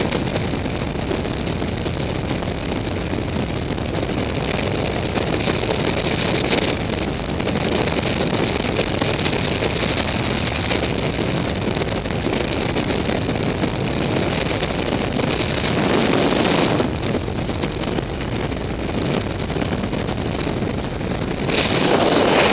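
Steady rush of freefall wind buffeting a helmet-mounted camera's microphone, growing louder near the end.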